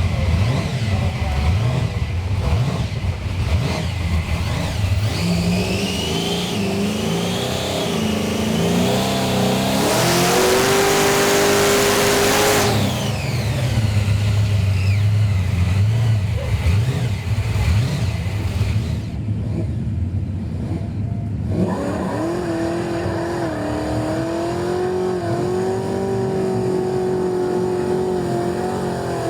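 Supercharged V8 of a Ford XA Falcon coupe running hard and revving, its pitch climbing and dropping again several times as it pulls through the revs. About ten seconds in there is a loud rushing noise lasting a couple of seconds, and a long steady climb follows near the end.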